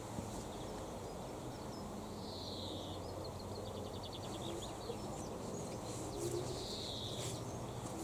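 Outdoor ambience with a steady low background rumble, over which a small songbird sings in the distance. There are two short high phrases that fall in pitch, one about two seconds in and one near the end, and a quick dry trill between them.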